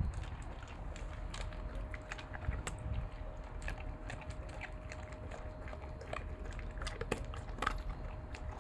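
German shepherd dog chewing food, a run of irregular crisp clicks and crunches from its jaws.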